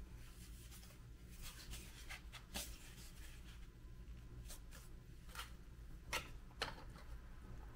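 Faint handling noises of a model Saturn V rocket being moved by hand across a cutting mat: scattered light taps and rubs, with a low steady hum underneath.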